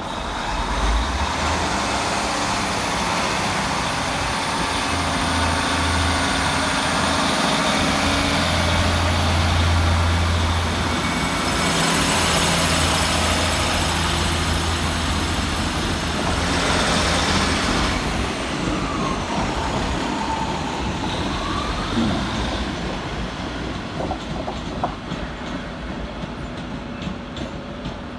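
Class 156 and Class 150 diesel multiple units pulling out of the station, their underfloor diesel engines working hard with a steady low note. The engine sound is loudest about ten seconds in and fades away after about eighteen seconds.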